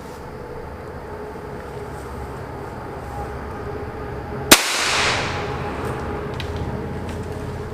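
A single gunshot about four and a half seconds in, its echo trailing off over about a second, over a steady background hum.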